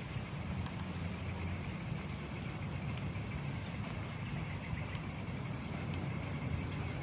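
Steady low rumble and hiss of outdoor ambience, like distant road traffic, with faint short high chirps every couple of seconds.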